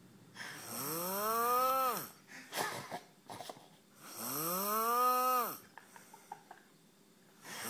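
A man snoring: two long, pitched snores, each rising and then falling in pitch over about a second and a half, with short clicking sounds in the gap between them and a third snore starting at the very end.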